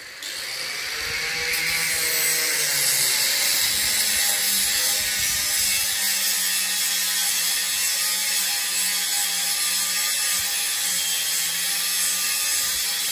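A power tool running steadily with a harsh, hissing grinding noise over a low hum. It builds up over the first couple of seconds.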